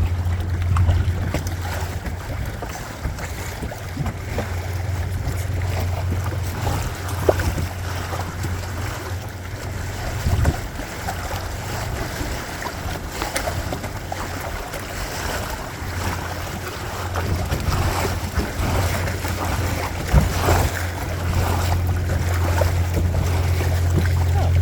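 Wind rumbling on the microphone over a steady rush of water along the hull of a small sailboat under way, with an occasional brief splash.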